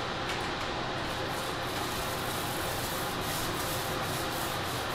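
Paintbrush rubbing along the ceiling edge in short repeated strokes while cutting in paint, over a steady hiss.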